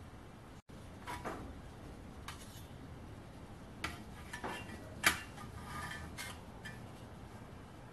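Light metallic clinks and scrapes of a thin sheet-metal fuel tray being handled and slid into the firebox of a small brass-and-steel model steam engine, with the sharpest clink about five seconds in.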